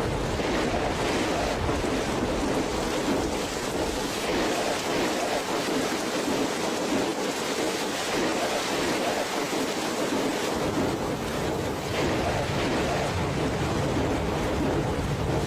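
Steady, even rushing noise with no separate events in it.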